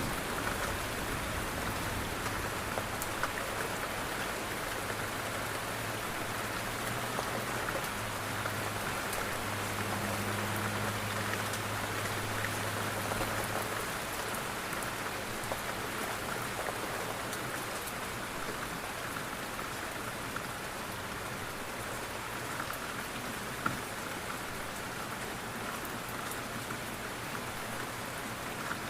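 Steady rain falling on a window pane, with scattered ticks of individual drops. A low rumble underneath fades out about halfway through.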